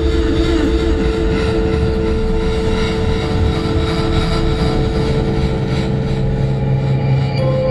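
Loud, steady droning noise with a rumble underneath and a held mid-pitched tone that steps slightly higher near the end. A low hum joins about five seconds in.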